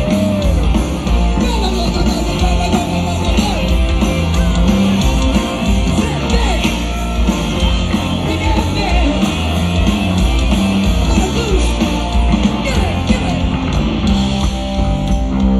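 Live rock band playing loud boogie-style rock, with drums, bass guitar and keyboards, and a lead singer singing and yelling over it.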